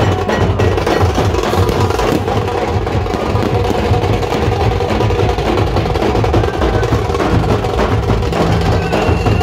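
A group of large steel-shelled double-headed drums beaten with sticks in dense, continuous drumming.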